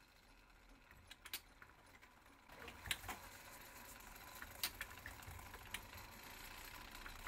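A few faint, separate metallic clicks from the brass three-train fusee clock movement as its striking levers are worked by hand.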